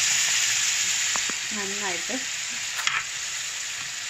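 Chicken pieces and just-added cooked, wet green peas sizzling in olive oil in a frying pan while being stirred, the sizzle slowly dying down. A short hum of a voice sounds about halfway through, and a utensil knocks against the pan just under three seconds in.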